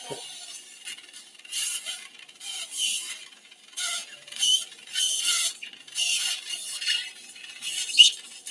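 Surgical suction tip drawing fluid and air from the opened tympanic bulla, hissing and slurping in irregular bursts about once a second.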